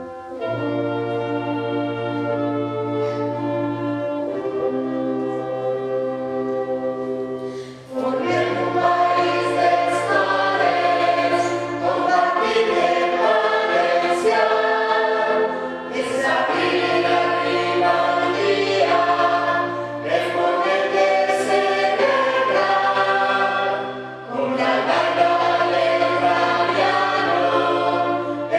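A song: held instrumental notes for the first several seconds, then a choir comes in about eight seconds in and sings over the accompaniment for the rest of the time.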